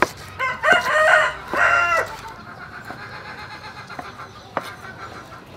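A rooster crowing, one loud crow in several parts lasting about a second and a half, with a fainter drawn-out call after it. A couple of sharp knife taps on a wooden cutting board, one at the start and one near the end.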